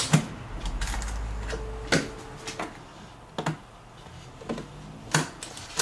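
Sharp clicks and taps of RAM modules and the computer's memory-bay door and retaining levers being handled while Corsair Vengeance memory sticks are fitted: about eight separate clicks spread through.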